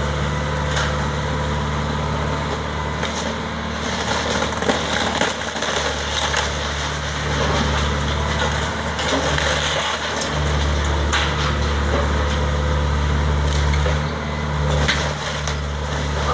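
John Deere excavator's diesel engine running steadily under load, getting louder about ten seconds in, while its arm tears into a wood-frame house. Scattered sharp cracks and crashes of splintering timber and falling debris sound over the engine.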